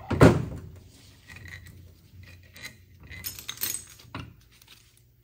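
Metal parts of a 700R4 automatic transmission's oil pump clanking and clinking as it is taken apart on the bench. There is one loud clank just after the start, then lighter clinks and scrapes that die away near the end.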